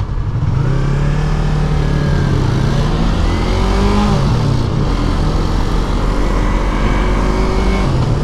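2019 Yamaha R3's 321 cc parallel-twin engine breathing through an aftermarket Akrapovic carbon end can, heard while riding. The engine note climbs about half a second in, dips and rises again midway as the bike slows and picks up, and shifts once more near the end.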